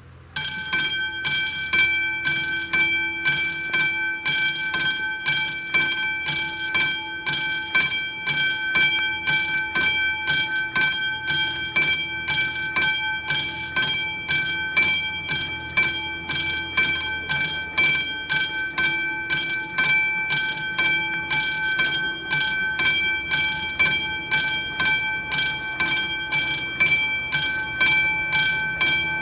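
Classic level-crossing warning bell starts ringing about a quarter second in and keeps ringing in rapid, even strikes. It signals that the crossing has activated for an approaching train.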